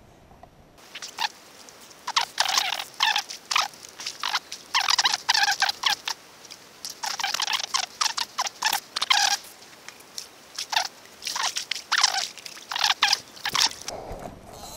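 Handling noise while a hooked carp is played on rod and reel: irregular groups of crackling, rustling bursts close to the microphone. They start about a second in and stop shortly before the end.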